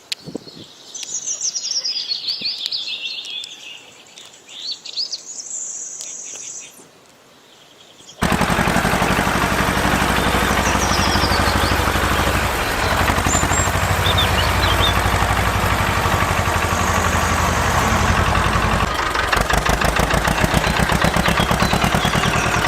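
Birds singing in descending trills. About eight seconds in, it cuts abruptly to a loud, steady, fast-rattling machine noise with a low hum under it.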